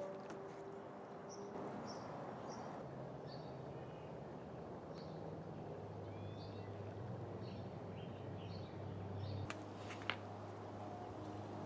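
Small birds chirping faintly in short, repeated high calls over quiet outdoor background noise with a low steady hum. There is a single sharp click about ten seconds in.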